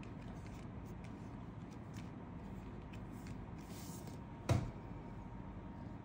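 Faint room hiss with a few light ticks of tarot cards being handled on a cloth-covered table, then one short thump about four and a half seconds in.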